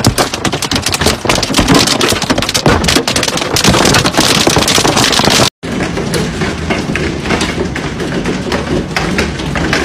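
Hail pelting a car's windshield and body, a loud, dense clatter of impacts on glass and metal. After a cut about five and a half seconds in, hail drums on a window's closed roller shutters, a little quieter.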